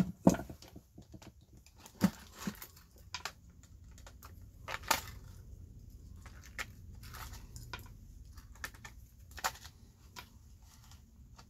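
Pliers and a plastic coffee-machine housing handled while wires are pulled and cut free: scattered, irregular sharp clicks and snaps of plastic and metal, a few seconds apart.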